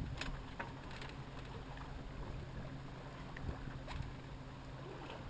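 Small sailboat under way through choppy water: water splashing and rushing along the hull, with a few sharp slaps and a steady low hum underneath.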